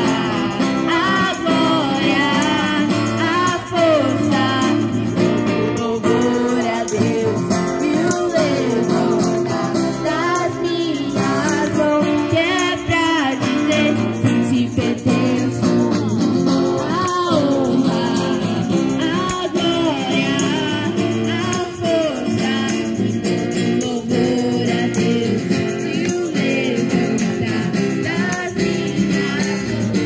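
A woman sings a Christian worship song into a microphone, with a man singing along and strumming an acoustic guitar.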